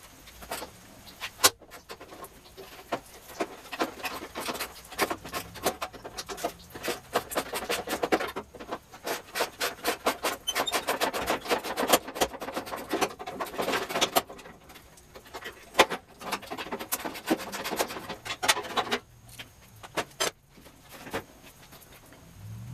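Hand tools working on car body bolts: runs of fast, sharp clicking and light metallic rattling in bursts, broken by short pauses.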